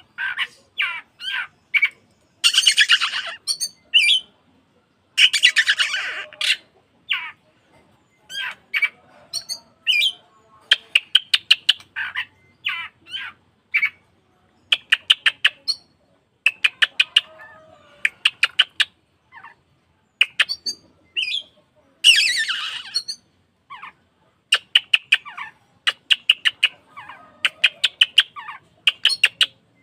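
Oriental magpie-robin (kacer) singing in full display song. Harsh, squawky phrases alternate with rapid runs of sharp, evenly repeated notes, in short bursts with brief pauses between them.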